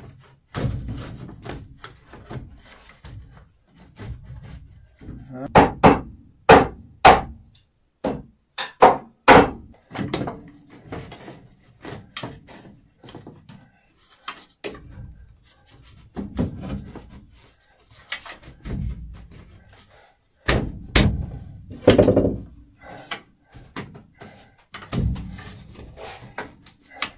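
Plastic drain pipe and fittings being pushed and knocked together while being fitted into a drain line: an irregular series of hollow clacks and knocks with rubbing in between, the sharpest knocks bunched about six to nine seconds in and again around twenty-one seconds in.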